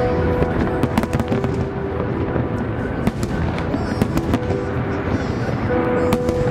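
Fireworks bursting in an irregular string of bangs and crackles, over held notes of festive music.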